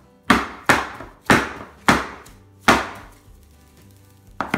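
A filled metal loaf tin knocked down onto a countertop: five sharp knocks in the first three seconds and one more near the end. The tapping settles the chocolate glaze evenly in the tin.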